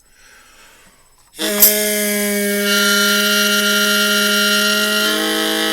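Harmonica holding one long, steady note chord, starting about a second and a half in and moving to a new chord near the end.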